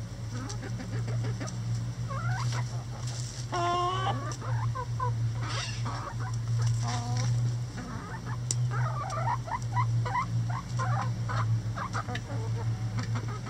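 Backyard chickens clucking and making short chirping calls, busiest about two thirds of the way through, with a few sharp taps, over a steady low hum.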